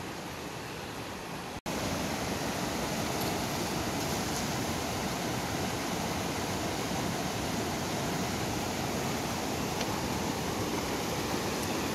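Rapids of a fast, rocky mountain river rushing steadily over boulders. The sound drops out for an instant about a second and a half in and comes back louder.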